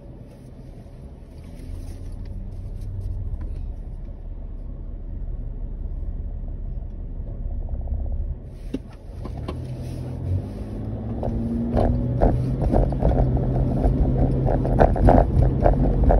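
Car engine rumbling low inside the cabin while stopped, then pulling away past the halfway point: the engine note rises and road noise builds steadily louder, with small knocks and rattles.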